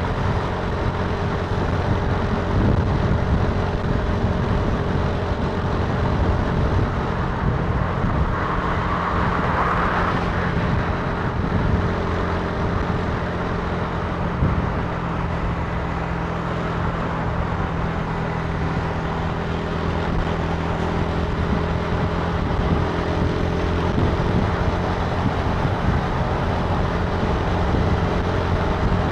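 Italika TC300 motorcycle engine running on the move at a fairly steady pace, with road and wind noise. A brief rush of higher noise comes about nine seconds in.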